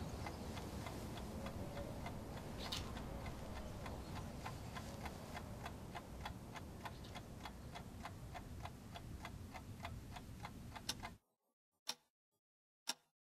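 Clock ticking steadily over a faint hum. About eleven seconds in the hum cuts out, leaving near silence broken by two lone ticks about a second apart.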